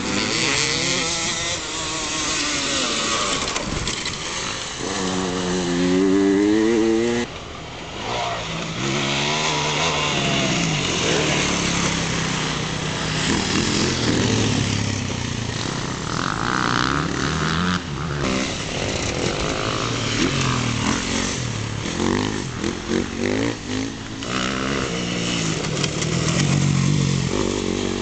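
Off-road dirt-bike engines revving hard as several riders pass one after another on a dirt track, the pitch climbing and falling again and again with throttle and gear changes. The sound drops out abruptly a little after seven seconds, then picks up again.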